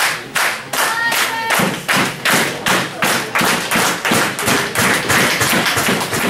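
Wrestling crowd clapping in a steady rhythm, about three claps a second, with a short shout from someone in the crowd about a second in.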